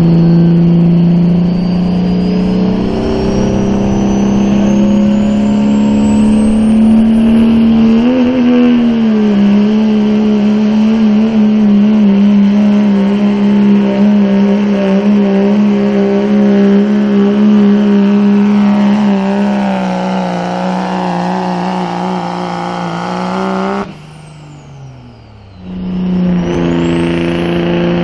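Turbocharged diesel pickup truck pulling a sled at full throttle: a steady, loud engine drone under a high turbo whistle that climbs over the first several seconds and then holds. About four seconds from the end the throttle is cut and the whistle slides down, then the engine revs up again and the whistle climbs once more.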